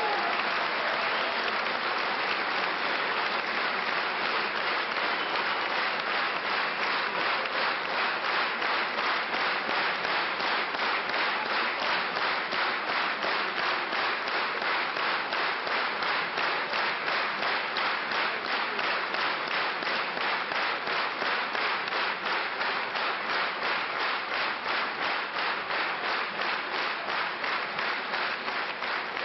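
Concert audience applauding, the applause settling after several seconds into steady clapping in unison at about two claps a second.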